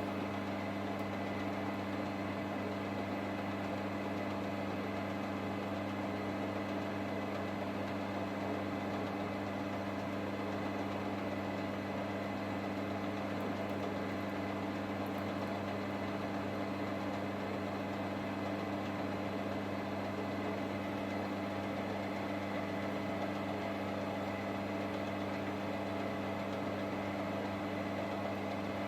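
Metal lathe running steadily, its electric motor and spindle giving an even hum that does not change.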